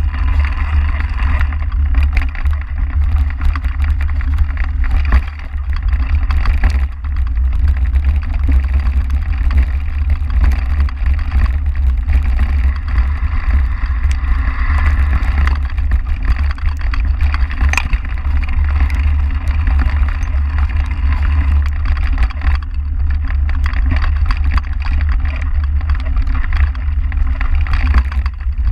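Mountain bike ridden over a rough dirt track: a steady low wind rumble on the microphone, under tyre noise and a constant clatter of small rattles and knocks from the bike over bumps.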